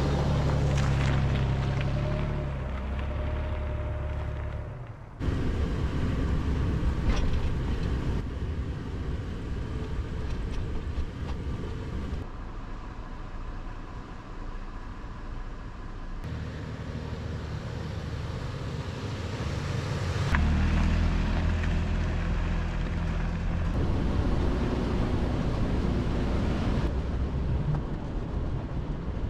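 Rumbling road and wind noise from a vehicle on the move, with a low engine hum at times. It changes abruptly every few seconds, as short clips are cut together.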